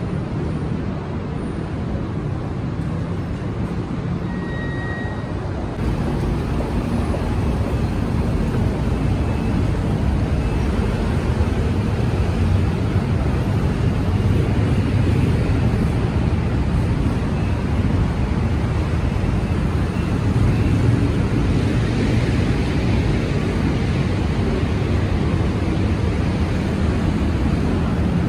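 Steady low rumble of road traffic and city background noise, growing louder about six seconds in.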